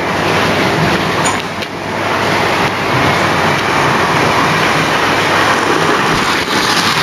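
Model train running along the track close by: a steady rumbling whir of its motor and wheels on the rails, building slightly over the first couple of seconds and then holding level.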